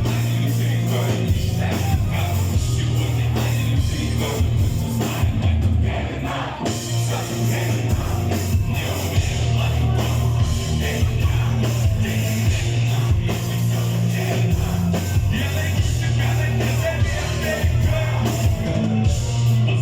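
Live concert music played loud over a PA: a heavy bass-driven beat with singing over it.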